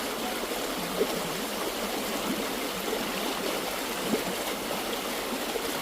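Steady rushing noise of flowing water, with two faint knocks about a second in and about four seconds in.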